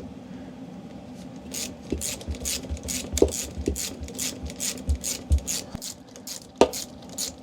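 Metal hand tool turning a nut on an RV slide-out's cable adjuster: a quick run of sharp metallic clicks about four a second, with a few dull knocks, as the nut is worked loose.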